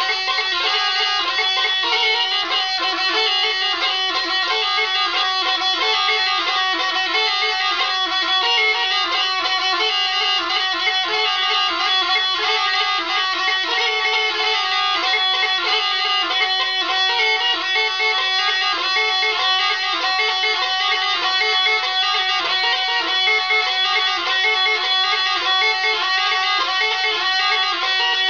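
Diple, a Croatian double-chanter folk reed pipe, playing a continuous tune with no pauses.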